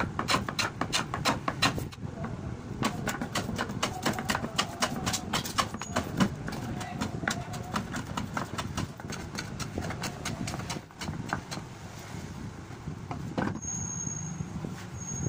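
Rapid wooden knocking, four or five taps a second, thinning out after about six seconds: a cane cricket bat handle being tapped down into the splice of the bat's willow blade.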